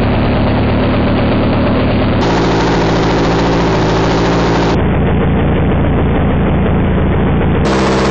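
Slowed-down sound of a Husqvarna two-stroke chainsaw running: a deep, steady engine drone whose pitch shifts abruptly about two seconds in, again about five seconds in, and near the end.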